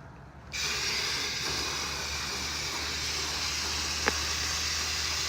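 Water spraying from a hose nozzle onto an HVAC condenser coil, a steady hiss that starts about half a second in. A low steady hum sits underneath, and there is a single click about four seconds in.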